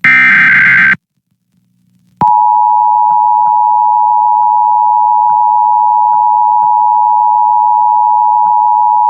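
Emergency Alert System broadcast: a one-second burst of SAME digital header data tones, then, after a second's pause, the EAS two-tone attention signal (853 and 960 Hz together) starts and holds steady. Together they announce a Required Monthly Test.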